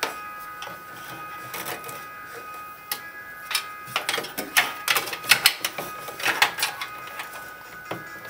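Cables being handled and pushed about inside a steel computer case: a run of sharp clicks, taps and rustles, mostly in the second half.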